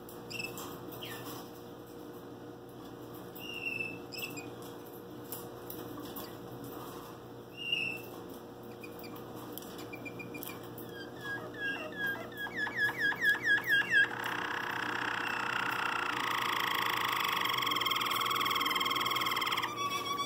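Waterslager canary singing. Scattered short chirps give way, about eleven seconds in, to a fast run of rising-and-falling notes at about four a second that grows louder. About fourteen seconds in this breaks into a long, held, full-toned phrase.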